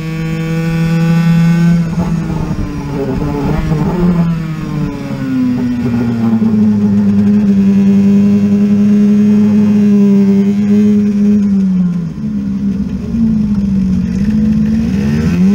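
Honda NSR50's small two-stroke single-cylinder engine running hard at high revs on track, heard from on board. Its pitch dips briefly at the start, tangles with another engine's note a few seconds in, and holds steady for several seconds. Near the end it falls as the throttle is eased and climbs again.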